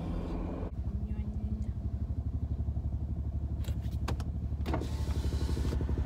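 Car driving, heard from inside the cabin: a low, rapidly pulsing rumble of engine and road, with a few light clicks about two-thirds of the way through.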